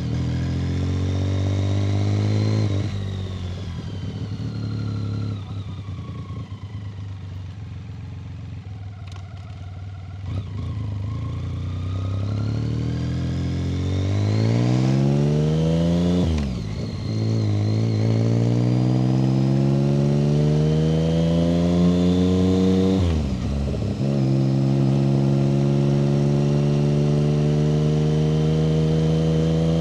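A 1990 BMW K75's inline three-cylinder engine under way in town. It slows and runs low for several seconds, then pulls away with a rising pitch. The pitch dips briefly twice at gear changes, then settles into a steady run near the end.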